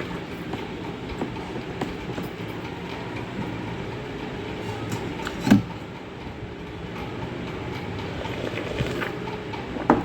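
Steady low rumbling noise with two short knocks, one about halfway through and one at the end.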